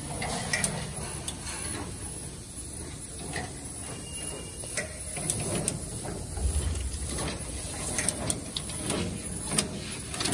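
HY-230 cellophane wrapping machine running: a steady mechanical clatter from its moving parts, with sharp clicks scattered irregularly throughout.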